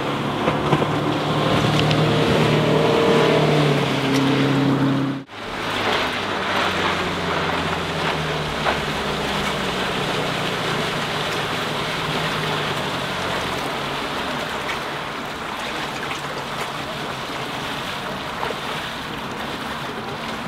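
Sea Ray 175 bowrider's sterndrive engine running at speed over the rush of water. After a cut about five seconds in, the engine note is fainter and slowly drops in pitch as the boat slows, under a steady wash of water and wind noise.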